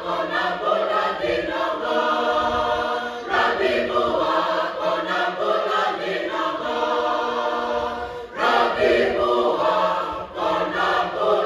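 Fijian Methodist youth choir singing a cappella in several voice parts, with short breaks between phrases about three, eight and ten seconds in.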